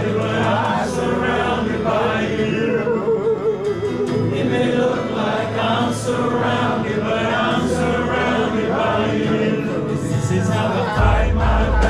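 A group of men singing a gospel worship song together with live instrumental backing and steady low bass notes. A deeper, louder bass note comes in near the end.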